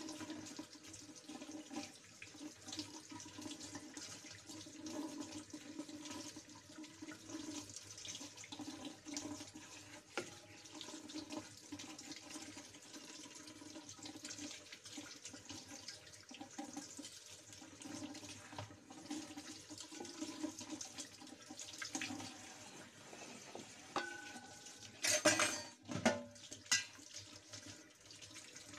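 Kitchen tap running steadily while hands rinse pieces of raw meat under it, the water splashing into a stainless steel sink. Near the end, a few brief loud knocks.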